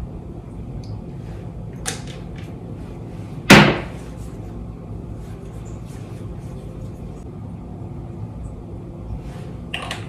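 Small clicks of skincare bottles and caps being handled on a bathroom counter, with one sharp knock about three and a half seconds in, over a steady low hum.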